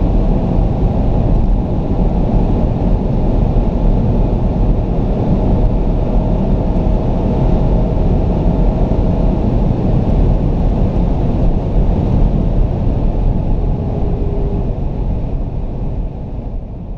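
In-cabin sound of a Porsche Panamera Turbo's twin-turbo V8 running flat out in sixth gear at close to 300 km/h, its steady drone buried in heavy wind and road noise as the speed creeps upward. It fades out near the end.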